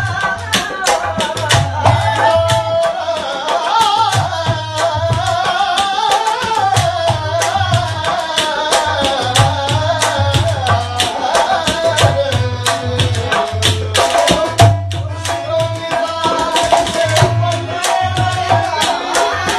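A male voice singing an ornamented Indian classical/folk-style melody in long, wavering held notes. It is accompanied by rhythmic tabla-like hand-drum strokes and a deep bass beat that recurs every second or two.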